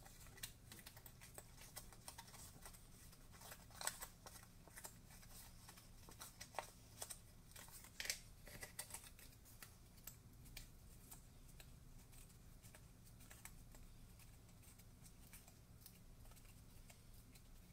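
Faint, scattered clicks and rustles of patterned cardstock being handled and its small tabs folded and creased by hand, over a faint steady low hum.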